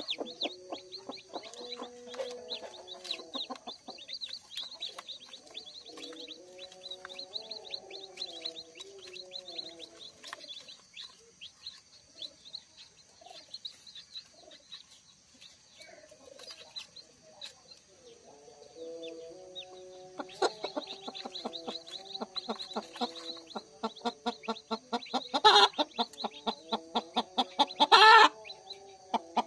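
Newly hatched native chicks peeping rapidly and high-pitched while the brooding hen clucks low and drawn-out beneath them, pausing for a while midway. A few loud, harsh rattling bursts come near the end.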